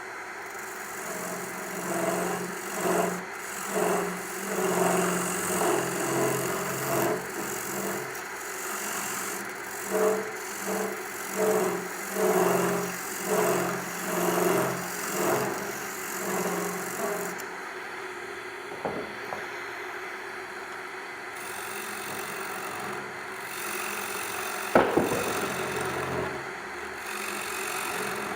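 Wood lathe running with a maple bowl blank spinning on it while a gouge cuts the outside of the bowl in repeated passes, the cutting noise swelling about once a second, then settling to a steadier run. A single sharp knock near the end.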